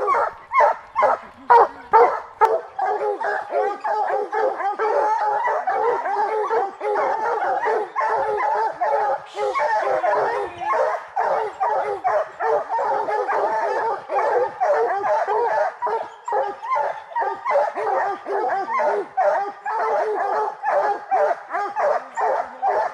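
Pack of English bear hounds baying at a tree, the tree bark of dogs holding a treed bear. Separate barks at first, then many dogs baying over one another without a break.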